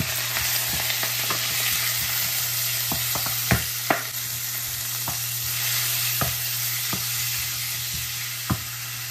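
Sliced pork sizzling in hot oil and garlic in a wok, the sizzle starting suddenly as the meat is tipped in, then stirred with a wooden spatula. Scattered knocks of the spatula against the pan, the two sharpest about three and a half and four seconds in.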